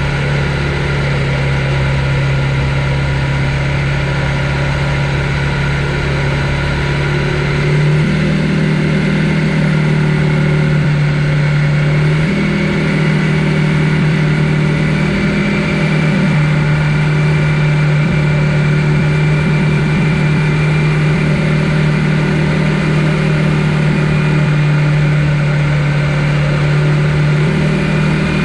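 Electric mountain bike's mid-drive motor humming steadily while ridden, its pitch stepping up and down several times.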